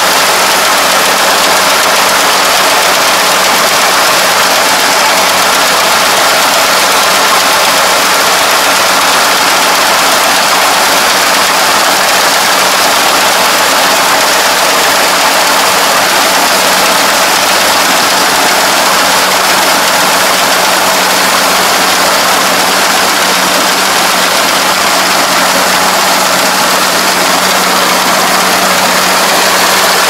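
Combine harvester running steadily: a loud, constant engine drone with a steady hum that does not change.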